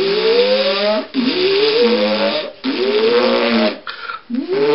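A person's voice imitating a whirring machine powering up: repeated rising, raspy whooping glides about a second long each, with short breaks between them.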